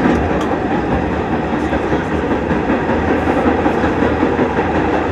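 Vintage New York City subway train in motion, heard from inside a car: a steady, loud noise of wheels running on the rails that does not let up.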